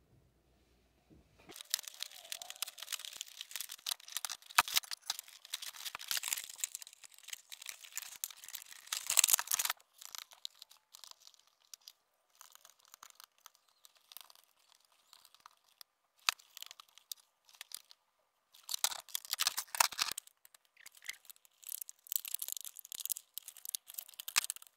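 Plastic and cardboard toy packaging being torn open and crinkled as a doll is taken out of its box: two long spells of dense crackling rustle, with scattered small clicks and crinkles between them.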